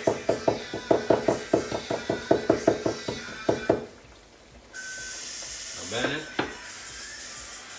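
A kitchen knife chopping parsley fast on a wooden cutting board, about six quick knocks a second for nearly four seconds, then stopping. A faint steady hiss follows, with a brief scrape and knock near the end.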